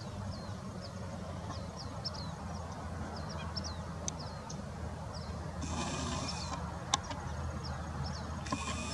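Birds chirping: quick, high notes that dip in pitch, several a second, over a steady low hum. A brief buzzing hiss comes in around six seconds in and again near the end, with a sharp click between them.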